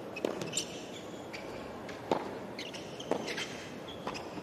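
Tennis rally on a hard court: three sharp pops of racket strings hitting the ball, spaced about one to two seconds apart, with short high squeaks of tennis shoes on the court between the shots.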